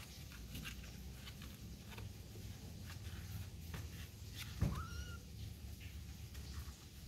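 A kitten meows once, a short call that rises in pitch, a bit past the middle; light clicks and rustles around it.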